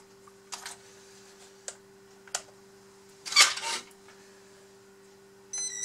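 Hands handling wires and plug connectors: a few light clicks and one louder rustling scrape about three seconds in, over a steady low hum. Near the end a high electronic beep starts as power is connected to the RC excavator's electronics.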